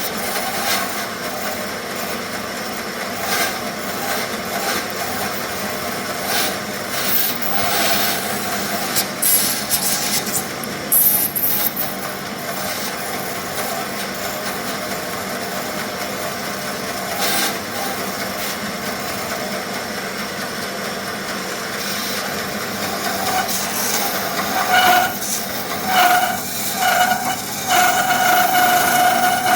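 Bandsaw cutting through thick wenge hardwood: a steady rasping of the blade in the wood. Near the end the machine's steady whine comes through, broken a few times.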